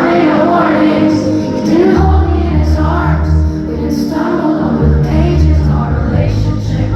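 Live pop song with a female lead vocal and a choir-like mass of voices singing, heard loud from within the audience. Deep sustained bass notes come in about two seconds in.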